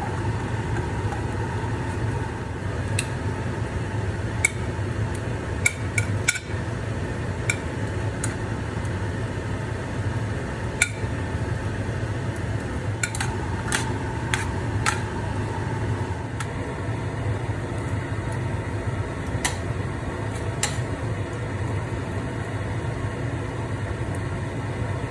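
A cooking utensil clinking and tapping against a pan now and then while pasta and cream sauce are stirred, over a steady low hum.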